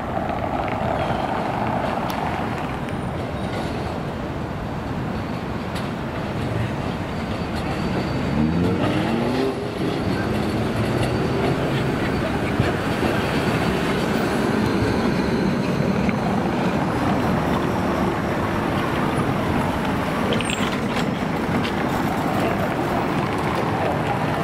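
Milan 7500/7600-series low-floor tram running along street track: steel wheels rolling on the rails with motor whine, growing louder as it draws near, and a whine that rises in pitch about eight seconds in.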